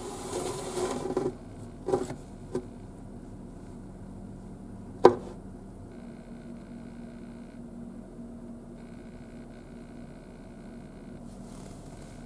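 A woven storage basket scraping as it is slid out along a wooden cabinet shelf, followed by a few light knocks and one sharp knock about five seconds in, the loudest sound. A low steady hum runs underneath.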